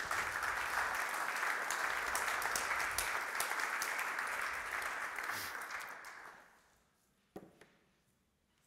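Audience applauding, the clapping fading out about six seconds in. A single short knock follows near the end.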